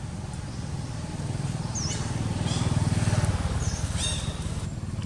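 A motor vehicle's engine running steadily, growing louder toward the middle and then easing off. A few short, high bird chirps sound over it.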